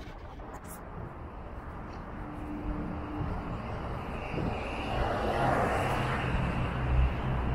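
Road traffic: cars driving past on a city street, with engine and tyre noise that grows louder toward the end as a vehicle comes close.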